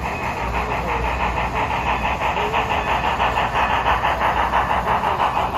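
HO scale model of Strasburg Rail Road No. 90, a 2-10-0 steam locomotive, running along the layout with a fast, even pulsing chuff. The sound grows louder as the locomotive comes near.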